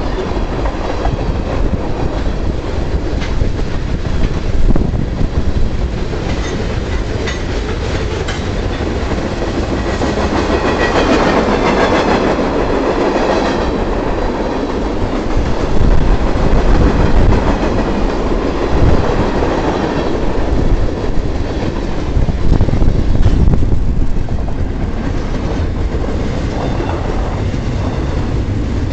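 Freight cars rolling past close by: steel wheels clacking over the rail joints over a steady heavy rumble. Tank cars give way to double-stack container well cars near the end.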